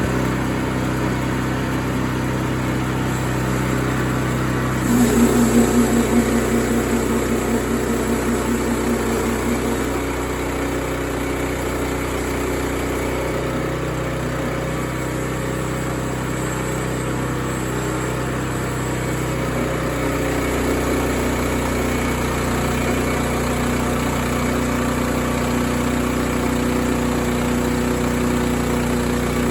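An engine running steadily. About five seconds in, a louder pulsing beat rises over it for a few seconds, then eases back to the steady run.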